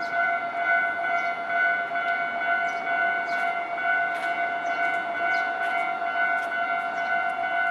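Electronic warning bell of a Japanese railway level crossing ringing, a steady high tone repeating without pause.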